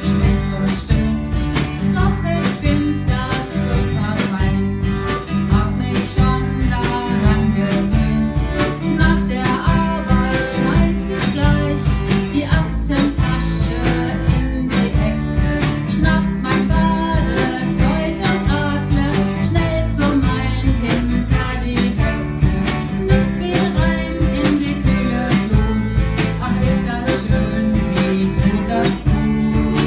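Band music: guitars over bass and drums with a steady beat.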